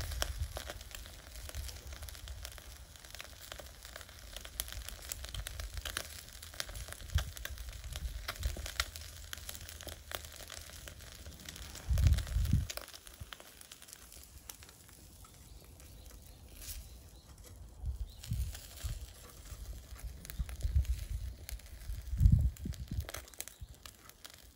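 Miso-marinated redfish fillet grilling over charcoal in a shichirin: a steady sizzle with frequent small crackling pops from the fat and marinade dripping on the coals. A low rumble swells briefly about halfway through and again near the end.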